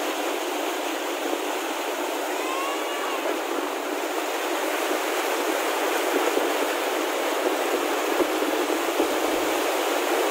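Floodwater rushing across a submerged road: a steady, loud rush of turbulent water.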